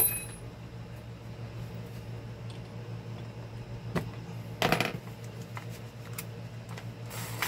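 A few light metallic clicks and knocks as a drill bit is handled and set into the chuck of a Bosch electric drill, the loudest little cluster a bit under five seconds in, over a low steady hum.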